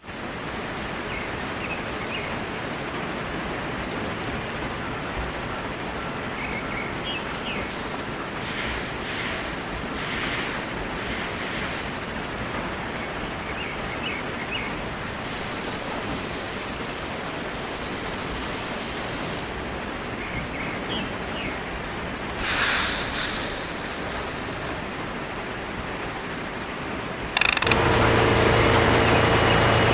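Steady hiss with several longer, louder stretches of hissing noise. About two seconds before the end a small electric motor switches on and runs with a steady hum.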